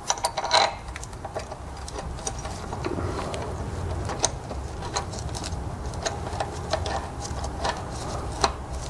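Light metallic clicks and rattles of a used exhaust clamp being worked by hand onto the rusty joint between the exhaust pipe and the rear silencer. The taps come irregularly, with a quick cluster in the first second.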